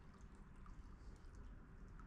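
Near silence: a faint low rumble with a few scattered light ticks.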